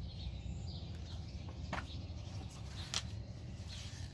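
Outdoor ambience: birds chirping now and then over a low steady rumble, with a few brief sharp rustles from the pages of a large picture book being handled and turned, the loudest about three seconds in.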